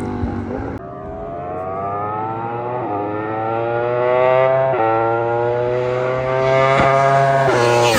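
V4 superbike with an open racing exhaust and no catalytic converter accelerating hard through the gears. The engine note climbs steadily and drops sharply at each upshift, about every two seconds, and grows louder.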